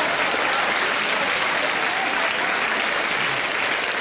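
Audience applauding steadily, in response to a comedian's punchline.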